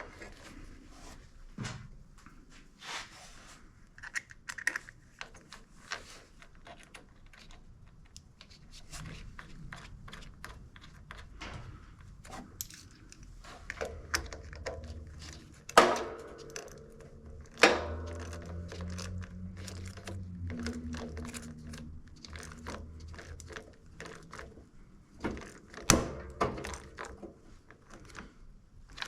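Hand tools and metal parts being handled: scattered clicks and clinks, with a few louder knocks, two a little past the middle and one near the end.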